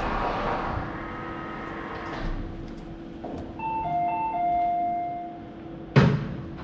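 Automated parking system's machinery running down as its door finishes opening, leaving a steady electrical hum. Around the middle a short electronic chime of a few tones in two pitches sounds, and a sharp, loud clunk comes near the end.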